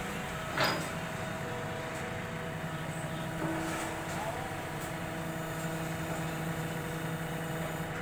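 JCB 3DX backhoe loader's diesel engine running steadily with the boom holding a suspended load on a chain, with one sharp knock about half a second in.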